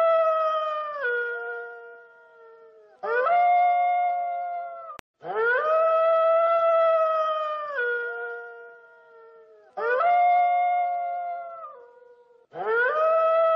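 Grey wolf howling: a series of long howls, each rising quickly, held on one pitch, then dropping to a lower note at the end, with gaps of a second or two between them.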